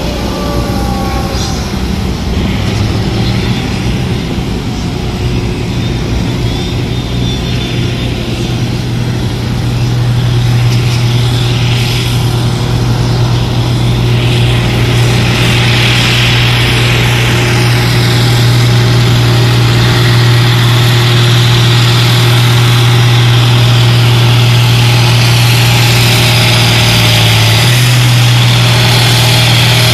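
Farm tractor's diesel engine running hard at a steady pitch under heavy load as it pulls a tractor-pull sled, growing louder as it approaches.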